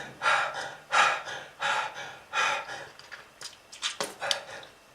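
A person breathing hard in short, noisy gasps, about one and a half breaths a second: laboured breathing of the kind linked to smoking-related lung disease.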